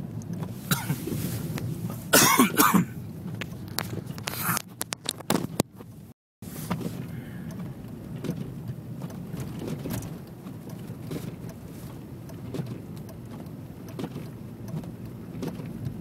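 Steady low rumble of a car driving on a snowy road, heard from inside the cabin. In the first few seconds there are loud knocks, rustles and short bursts of the phone being handled and put away, and the sound cuts out completely for a moment about six seconds in.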